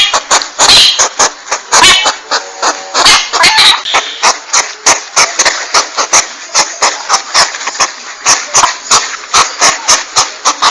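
Porcupine calls: a rapid, irregular series of sharp clicks, several a second, mixed with short squeaky calls.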